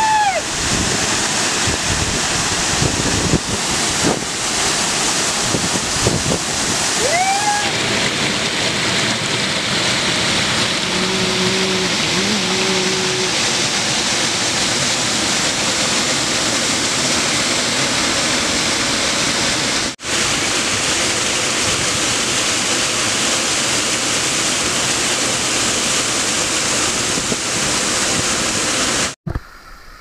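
Waterfall pouring into a rock pool: a loud, steady rush of falling and splashing water.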